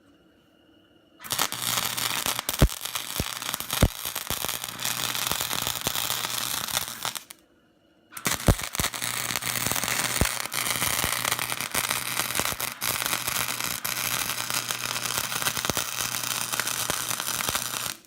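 Electric arc welding on steel bars: a dense, steady crackle with a low hum underneath and occasional sharp pops. It runs in two beads, one of about six seconds starting a second in, then after a brief stop a longer one of about ten seconds.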